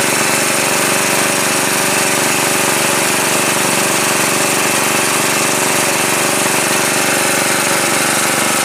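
A small engine running steadily at one constant speed, with a fast, even pulsing beat.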